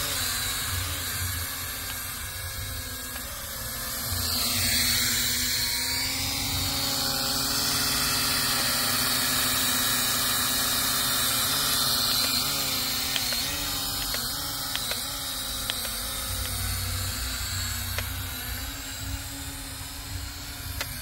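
Small toy quadcopter drone in flight, its propeller motors giving a steady high-pitched whine. The pitch dips and recovers a few times as the motor speed changes.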